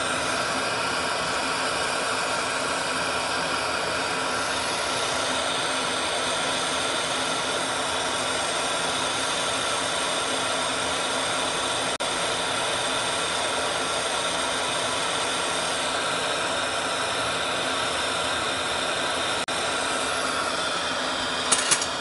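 Oxygen-gas lampworking torch burning with a steady hiss while a glass bead on a rod is melted in its flame. A couple of short sharp clicks come near the end.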